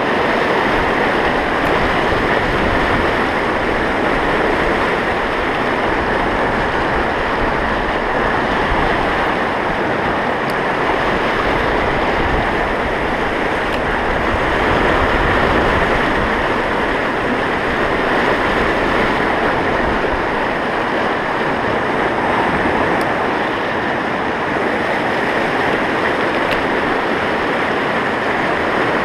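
Rushing whitewater of a fast mountain river's rapids, a loud, steady wash of noise.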